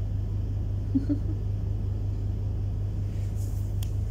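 A steady low hum, with a brief short sound about a second in and a sharp click near the end.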